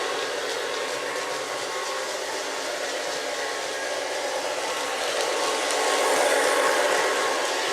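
Lionel O-gauge Alco S4 switcher locomotive running along three-rail track: a steady rolling and motor noise that swells slightly about six seconds in.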